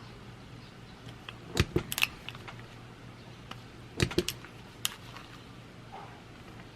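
Kokuyo Harinacs stapleless stapler pressed down on paper: two quick clusters of sharp clicks about two seconds apart, with a single click a little after the second.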